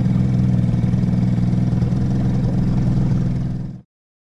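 Outboard motor pushing an inflatable boat, running at a steady speed with a low hum, until the sound cuts off suddenly near the end.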